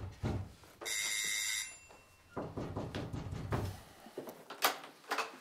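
Electric doorbell ringing once, about a second in, for just under a second, followed by a short click near the end.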